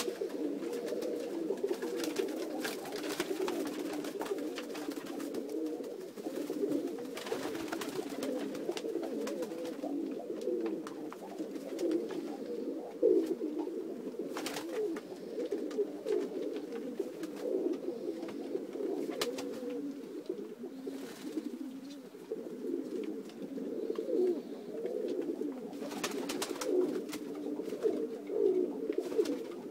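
A flock of domestic pigeons cooing continuously, many calls overlapping into a steady low warble, with a few short clicks now and then.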